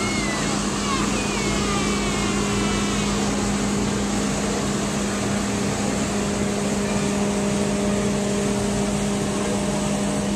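Diesel engine of a self-propelled crop sprayer running steadily as the machine drives slowly past, a constant drone with a steady low pitch.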